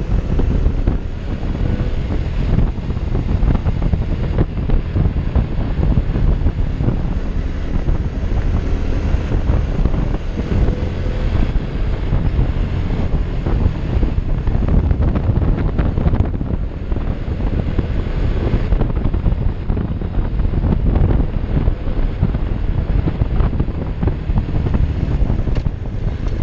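Heavy wind buffeting the microphone on a moving motorcycle, a steady loud rumble. The Honda Innova's small single-cylinder four-stroke engine runs faintly beneath it as the bike climbs.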